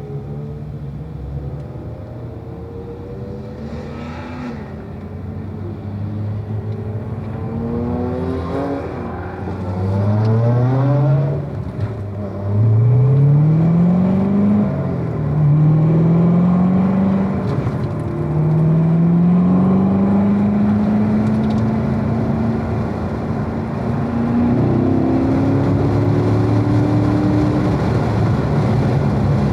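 Corvette V8 engine pulling hard through the gears: its note climbs in pitch, drops back at each upshift and climbs again, after a quieter, steadier stretch at the start, then holds a steady higher note near the end.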